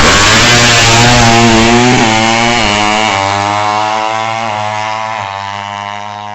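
Suzuki Satria FU drag bike with a 200 cc engine at full throttle, revving high and shifting up through the gears: the pitch climbs and drops back at each shift, and the sound fades steadily as the bike pulls away.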